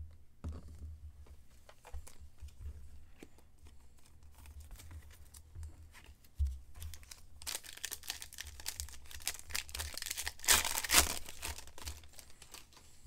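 A trading-card pack wrapper being torn open and crinkled, after scattered soft clicks of handling; the tearing and crinkling is loudest a little over two thirds of the way in.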